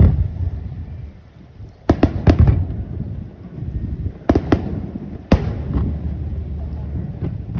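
Aerial fireworks shells bursting: a sharp bang at the start, two quick pairs of bangs about two and four seconds in, and a single bang a little after five seconds, over a low rumble of echoing detonations.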